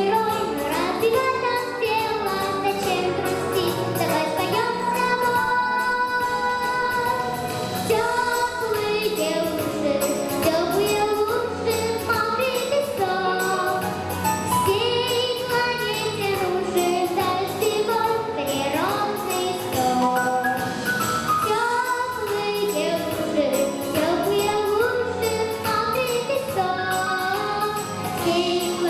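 Female vocalist singing a pop song over a backing track, with held, wavering notes.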